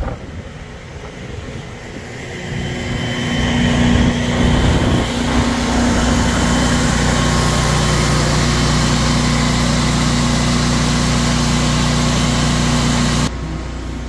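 Kohler 20 kW standby generator's air-cooled V-twin engine running at a steady governed speed after an automatic start, carrying the house load once the transfer switch has switched over during a simulated power outage. It grows louder over the first few seconds, holds steady, and drops off abruptly near the end.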